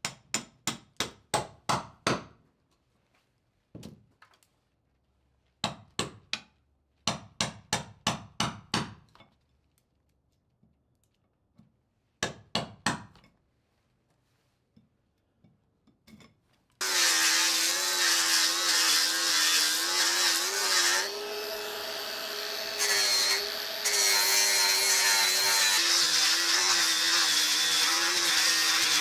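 A wood chisel cutting into the rabbet of a wooden boat's stem in quick runs of sharp strokes, about four a second. About seventeen seconds in, an angle grinder starts suddenly and runs steadily, grinding the wood, its pitch wavering slightly as the load changes.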